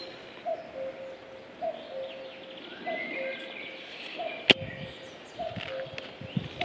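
Common cuckoo calling its two-note 'cuck-oo', a higher note dropping to a longer lower one, repeated about once a second, with other songbirds twittering higher up. A single sharp click about two thirds of the way through.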